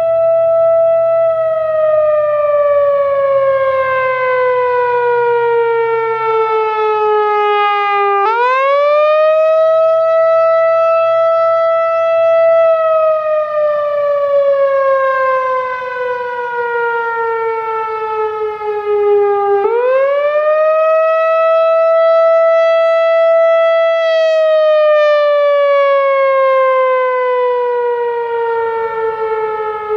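Whelen WPS-4004 electronic outdoor warning siren sounding the attack signal: a loud wailing tone that climbs quickly, holds, then slides slowly down over several seconds. It climbs back up twice, repeating about every eleven and a half seconds.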